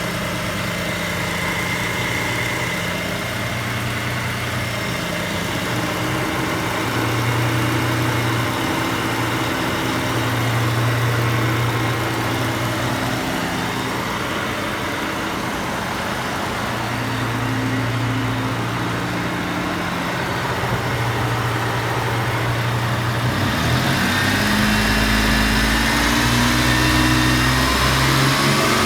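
Mitsubishi 3000GT's V6 engine idling with a ticking noise. About 23 seconds in, the engine note changes and the revs climb toward the end.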